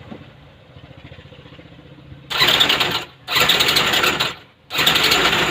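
Robin brush-cutter engine idling quietly, then revved hard three times from about two seconds in, the revs dropping sharply between bursts. The owner says the engine is still flooded with fuel because the fuel has not fully come through.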